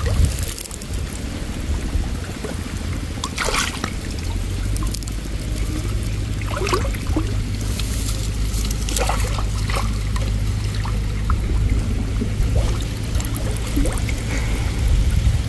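Canal water sloshing and trickling around a person wading chest-deep and groping into a hole in the bank, with a few short splashes. A steady low rumble runs underneath, stronger from about four seconds in.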